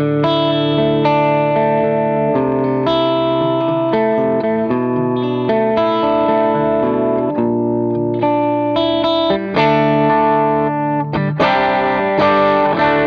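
Gibson Les Paul electric guitar played through an engaged JHS Whitey Tighty compressor pedal into a Vox AC30 amp: a run of sustained notes and chords held at an even level, with a couple of short breaks near the end.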